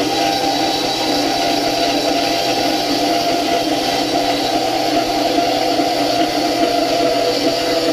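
Benchtop bandsaw with a speed-reduction pulley kit, running at its slowed metal-cutting blade speed while its blade saws through 1-inch metal tubing. The motor hum and blade whir hold steady over a hiss of cutting.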